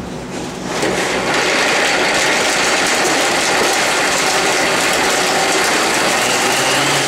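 Countertop blender starting up about a second in and then running steadily, puréeing basil, pistachios and olive oil into pesto.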